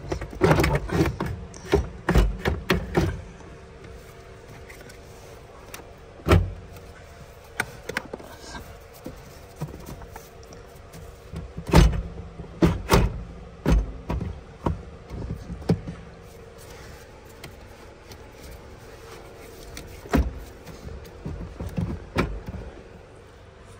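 Irregular knocks, clicks and rattles of plastic and metal as a Vauxhall Corsa E's pedal box is pulled forwards and worked free of the bulkhead. There is a flurry of knocks at the start, single knocks after that, another cluster about halfway and two more near the end, over a faint steady hum.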